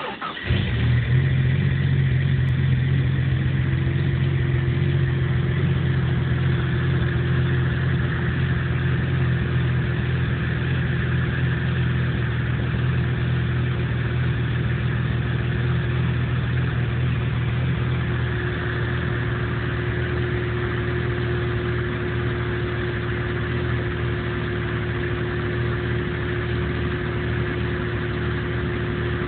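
1997 Jeep Cherokee engine catching in the first second and then idling steadily, with a thin steady whine above the engine note; the owner calls it a rough idle, and says the engine dies under power yet sets no fault codes.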